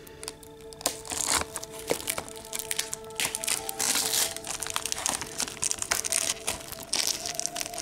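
Plastic shrink wrap on a Blu-ray case being slit and handled: crinkling and crackling with many sharp clicks, loudest about a second, two seconds and four seconds in.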